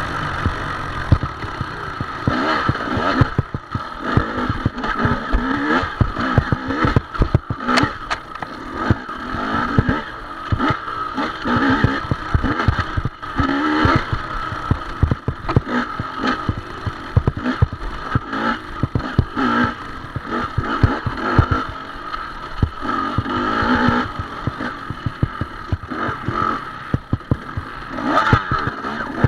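Dirt bike engine revving up and easing off again and again as it rides a rough trail, with frequent knocks and clattering over bumps.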